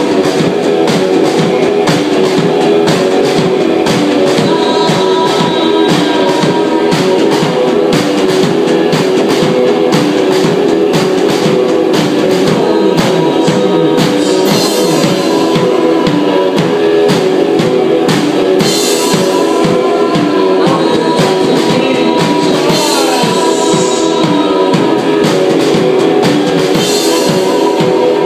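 A small band playing live: electric guitar, a drum kit struck in a steady, busy pattern, and singing, all loud and steady.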